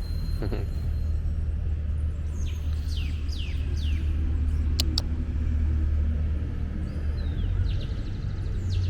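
Steady low rumble of city traffic, with birds calling in short, quick falling chirps in two runs and two sharp clicks about five seconds in.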